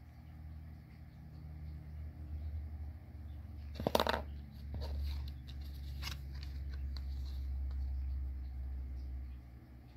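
Magic: The Gathering cards being handled: a short, sharp rustle and click about four seconds in as one card is put down and the next picked up, with a few lighter ticks later, over a low rumble.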